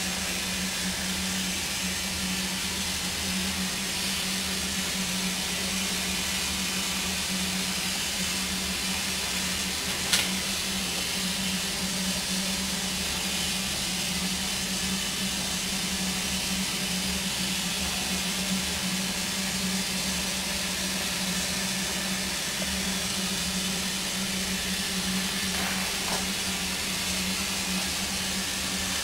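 Steady steam hiss from Darjeeling Himalayan Railway No. 19, a 2 ft gauge narrow-gauge steam locomotive standing in steam, with a steady low hum beneath it. A single sharp click sounds about ten seconds in.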